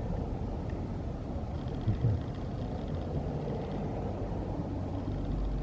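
Steady low rumble of outdoor background noise, with two soft knocks about two seconds in.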